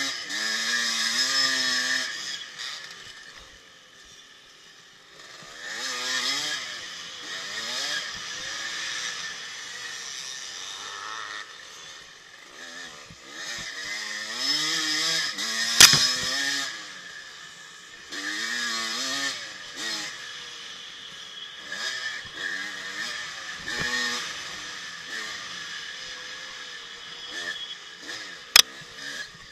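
1984 Yamaha IT200's two-stroke single-cylinder engine revving up and down again and again as the throttle is rolled off and on while riding a dirt trail. Two sharp knocks cut through, one about halfway and one near the end.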